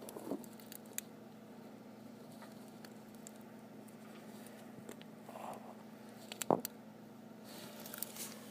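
Faint handling noise: a few scattered clicks and taps, the loudest about six and a half seconds in, over a steady low hum.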